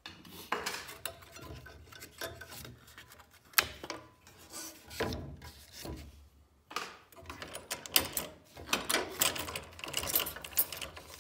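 Plywood sheet sliding and rubbing across the scroll saw table as it is handled, heard as irregular scrapes and knocks with a short pause about six seconds in.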